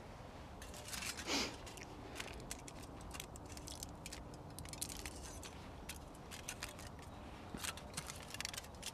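Knife blade cutting and scraping through a strip of aluminium foil, narrowing its middle: a run of small crinkly clicks and scrapes, with one louder swish about a second and a half in.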